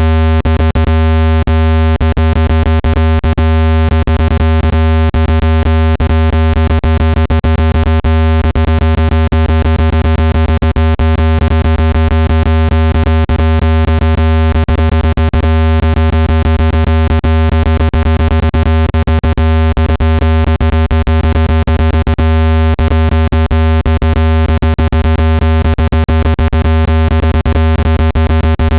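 Synthesized speaker water-ejection tone: a loud, steady, low buzzing tone with overtones, broken by irregular clicks. It is meant to shake water droplets out of a wet phone speaker.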